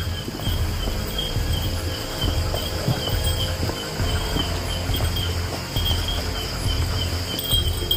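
Night insects chirping steadily: a high chirp pulsing a couple of times a second over a continuous higher drone. Under it, an uneven low rumble from walking and camera handling.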